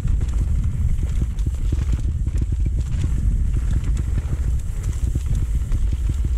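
Mountain bike descending a rough trail at speed: a constant wind rumble on the camera's microphone under a fast, irregular clatter and rattle of the bike over rough ground.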